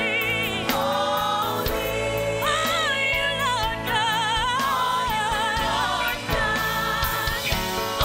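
Gospel praise team singing into microphones with a backing band: a lead voice with strong vibrato over the group's voices and a steady beat.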